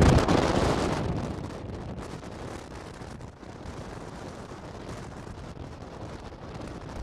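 Rushing wind and road noise from a vehicle driving on a highway, loud at first and dying down over the first second or two, then steady.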